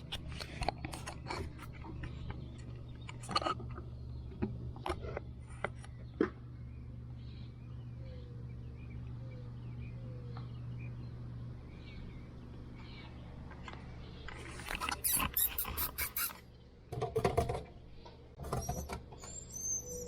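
Scratching and scrabbling inside a dryer vent duct, with a few faint cheeps about eight to ten seconds in, from starling nestlings nesting in the vent. A steady low hum runs underneath and stops about halfway.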